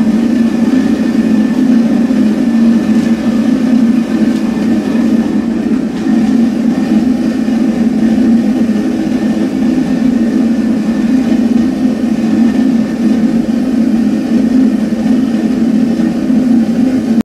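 Blower-fed gas forge running steadily: the electric centrifugal blower hums steadily and the forced-air burner flame burns in the forge chamber, now lit and warming up.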